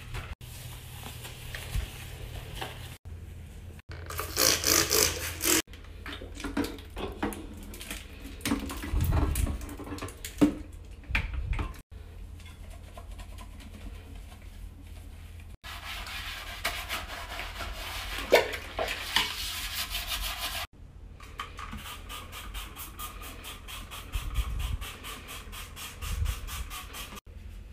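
A run of short household bathroom-cleaning sounds, each cut off abruptly: a cloth rubbing and wiping a sink and faucet, powder cleanser shaken into a toilet bowl, and liquid cleaner tipped into the bowl.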